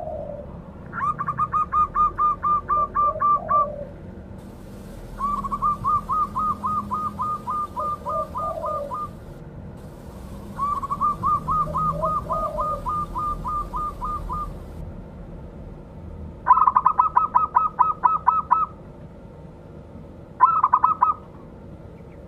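Zebra dove (perkutut) singing its cooing song in five phrases of rapid, evenly repeated notes. The first three phrases are long, and the last two are louder, faster and shorter. Softer, lower notes sound under the end of each of the first three phrases.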